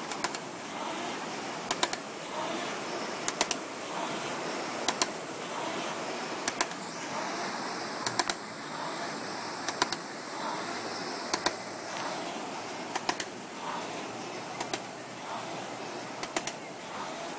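Concept2 rowing machine being rowed: the air flywheel's whoosh swells and fades with each stroke, about one stroke every second and a half. Each stroke brings a quick cluster of one to three sharp clicks.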